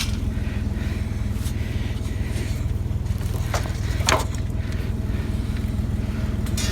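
Vehicle engine idling steadily, with two short metallic clicks about three and a half and four seconds in.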